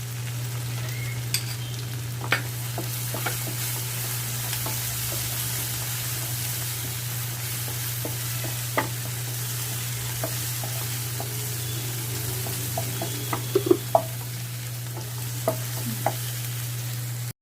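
Thick onion-tomato masala paste with spice powders sizzling in oil in a pan as it is stirred, with scattered clicks of the spatula against the pan, under a steady low hum. The paste is being fried until the oil separates.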